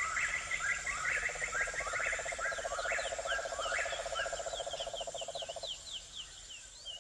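A chorus of small animal calls: a fast pulsing trill that stops near the end, over repeated short chirps and quick high squeaky notes.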